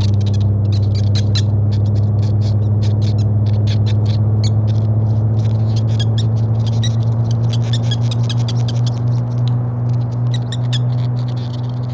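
Electronic science-fiction sound effect: a loud, steady low hum with a stream of irregular high clicks and chirps over it.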